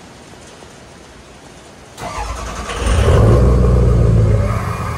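2003 Ford F-250's straight-piped 6.0-litre Power Stroke V8 turbodiesel cranking and starting about two seconds in. It flares loud for a second and a half, then settles into a steady high idle.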